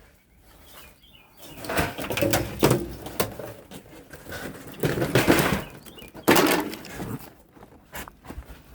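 Irregular rustling and knocking of things being handled and moved, in three louder bouts.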